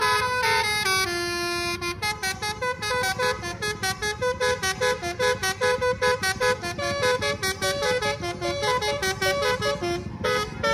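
Basuri telolet bus horn playing a tune: a few held, stepping notes, then from about two seconds in a fast run of short staccato toots, about five a second, over a low rumble.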